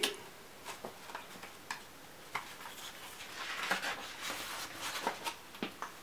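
Pages of a picture book being handled and turned: a few faint clicks, then a soft paper rustle for about two seconds starting around three seconds in.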